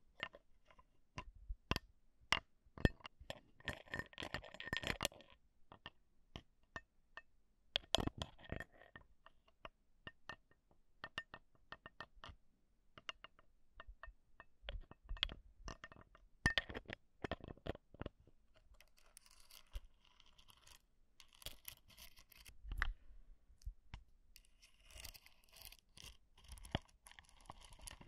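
Metal ear pick scratching and tapping directly on the microphone capsule of a Zoom H1 handheld recorder, for ear-cleaning ASMR. Sharp, irregular clicks throughout, with short bursts of scraping several times.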